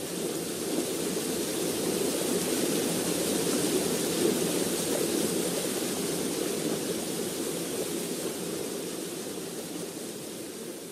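Waterfall pouring into its plunge pool: a steady rush of falling water that grows louder over the first few seconds and slowly fades toward the end.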